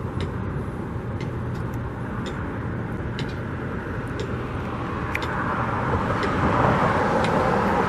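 Road traffic: a steady wash of vehicle noise that swells as a vehicle passes about six to seven seconds in, with a few faint clicks.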